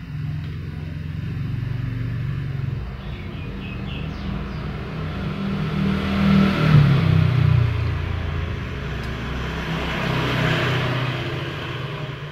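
A motor vehicle's engine running close by, growing louder to a peak about seven seconds in, easing off, then swelling again briefly before fading.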